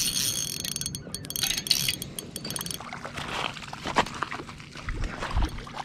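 Spinning reel being wound in against a hooked trout, with high steady tones for the first couple of seconds followed by scattered sharp clicks.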